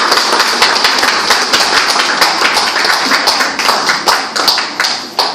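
Audience applauding with dense, steady clapping that thins out and stops just before the end.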